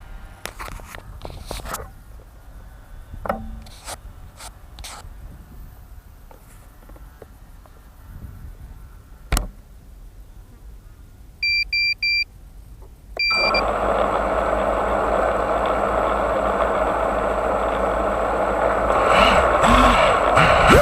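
Small clicks and a sharp knock of handling, then three quick beeps and a fourth as an FPV drone's electric motors spin up, running steadily and slowly getting louder toward the end.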